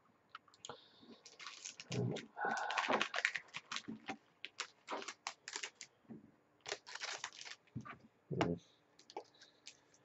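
Trading cards being handled on a wooden table: crisp clicks and rustling of card stock, with a couple of longer crackly stretches and a few soft thumps as cards are set down.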